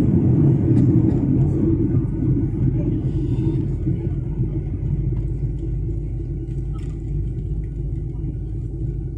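Steady low rumble of an airliner cabin in flight, engine and airflow noise heard from a window seat beside the wing, slowly getting quieter.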